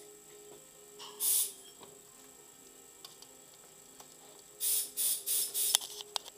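Ratchet wrench on the Parsun four-stroke outboard powerhead, bolts being run down: one short burst of ratcheting about a second in, then a quick run of four or five bursts and a few sharp clicks near the end.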